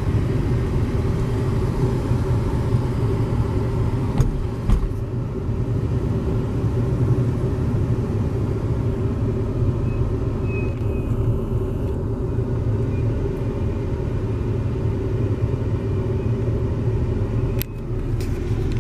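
Steady low rumble of a car on the move, with a few sharp clicks about four seconds in and again near the end.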